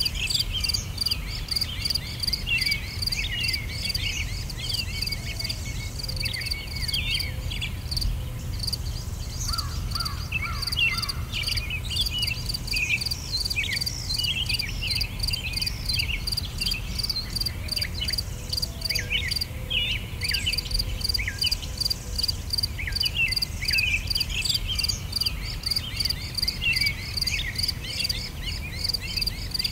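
Nature ambience: insects chirping in an even, rapid pulse, with birds calling in many short chirps over a low background noise.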